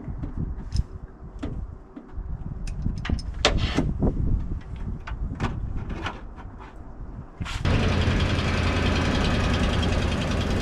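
Scattered knocks and clanks, then about seven and a half seconds in a sudden switch to a truck engine running steadily with a low hum and a constant noise over it.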